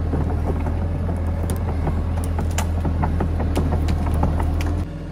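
Tracked excavator's diesel engine running steadily with a deep hum, with scattered sharp cracks and clicks as the arm and bucket work in brush beside a tree. The sound drops suddenly near the end.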